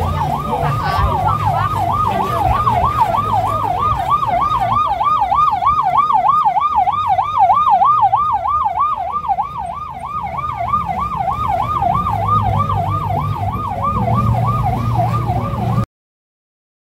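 Emergency vehicle siren in a fast yelp: one loud tone rising and falling rapidly, several times a second, over a low traffic rumble. It cuts off abruptly near the end.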